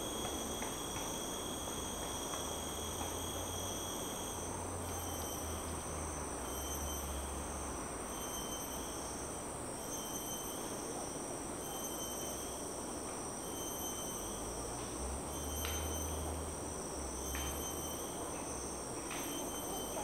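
Forest insects calling: a steady high-pitched buzz, joined after a few seconds by another call pulsing about once a second, over a low rumble of highway traffic that swells twice as vehicles pass. A few short clicks near the end.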